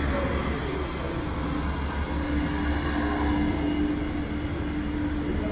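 Class 814 Regionova diesel multiple unit passing, its Tedom diesel engine giving a steady deep rumble, with a steady hum joining about two seconds in.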